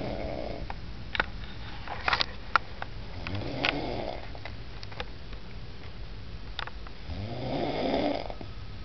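Slow, regular snoring, one snore every three to four seconds, the last one the loudest. A few short sharp clicks fall between the snores.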